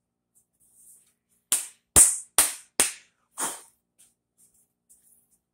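A wooden guitar neck knocked five times against a hard surface, in quick succession, to shake sawdust out of freshly drilled insert holes.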